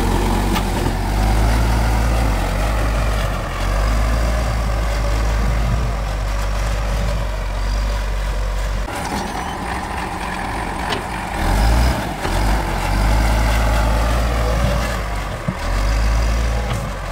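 Case 770 backhoe loader's diesel engine running under load while it pushes soil with the front bucket, a steady loud low rumble. About nine seconds in the sound shifts: the deep rumble drops away and a higher engine note comes forward.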